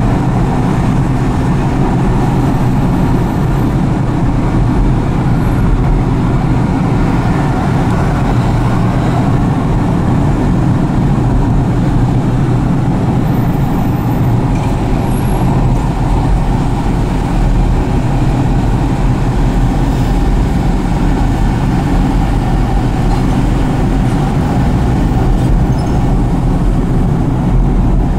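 Steady road noise of a car driving: a continuous low rumble of engine and tyres with traffic around, unchanging throughout.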